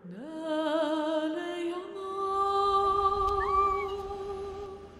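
Soundtrack music: a single voice sings long drawn-out notes, sliding up into the first one and wavering on it, then holding a steady higher note.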